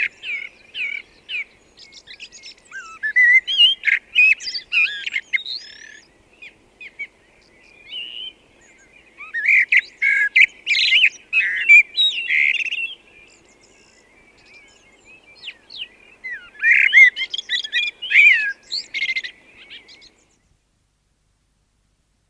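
Eurasian blackbird (Turdus merula) singing in four bursts of song, with pauses of a few seconds between them.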